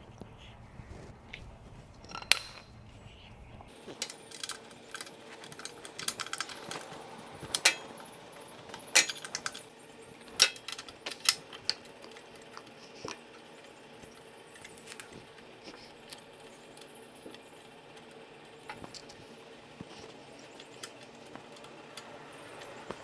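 Metal hand tools clinking and clicking against a Briggs and Stratton generator engine while its spark plug is unscrewed and pulled: irregular sharp clinks, busiest in the first half and sparser later.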